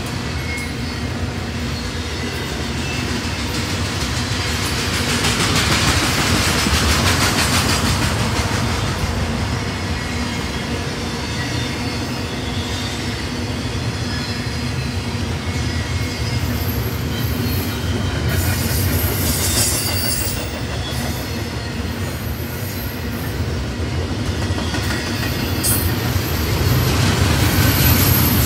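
Double-stack intermodal freight train rolling past, a steady rumble of well-car wheels on the rails that swells twice, with a high wheel squeal briefly about two-thirds of the way through.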